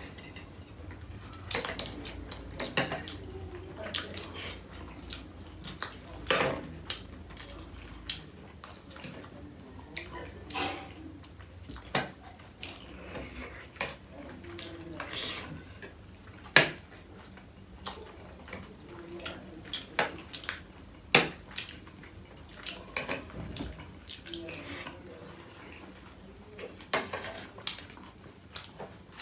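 Metal forks clinking and scraping against ceramic plates as two people eat dumplings, in irregular sharp clicks with a few louder clanks.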